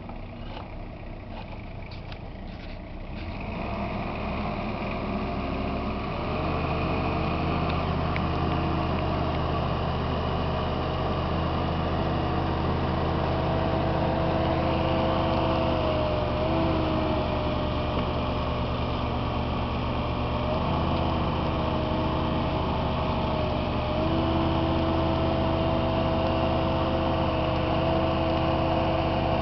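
Bobcat 322 compact excavator's diesel engine running. It gets louder about three seconds in and again about six seconds in as it speeds up, then runs steadily with a few brief dips and steps in pitch.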